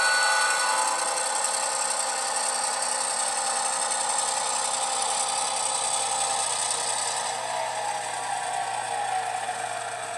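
HO-scale model diesel switcher locomotive running along the layout track: a steady mechanical whine of several tones with a rattle, one tone falling in pitch near the end as the locomotive draws closer.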